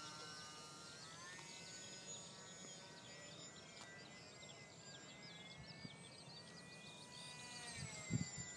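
Faint high whine of a Parkzone Mini T-28 RC plane's electric motor and propeller, rising in pitch about a second in and dropping again near the end. Small birds chirp alongside.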